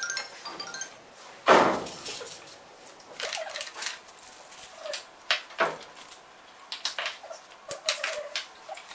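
Small metal airgun filling-unit parts clicking and clinking together as they are handled and assembled by hand, with a louder clatter about a second and a half in. Near the end, parts clink against each other in a plastic crate as they are rummaged through.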